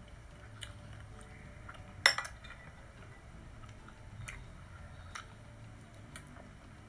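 Metal spoon and fork clinking and scraping against plates and a bowl: a few separate sharp clinks, the loudest about two seconds in.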